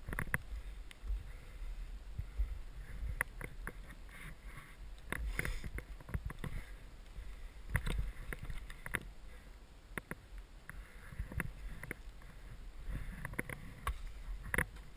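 Skis cutting and swishing through deep powder snow, with many irregular knocks and clicks and a steady low rumble underneath.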